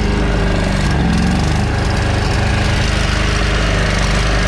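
Lawn mower engine running loud and steady, fed on gas poured straight into the carburettor.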